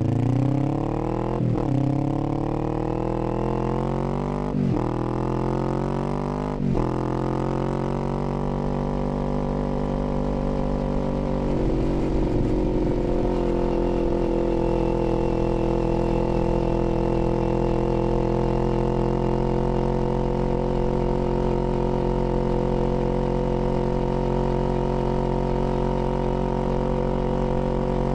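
Kawasaki Z400's parallel-twin engine accelerating through the gears: its pitch climbs, with three quick upshifts in the first seven seconds. It then settles into a steady cruise at constant revs.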